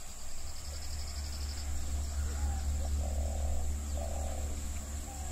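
Forest ambience: a fast, faint high trill in the first second and a half, then a few soft low calls around the middle, over a steady low hum.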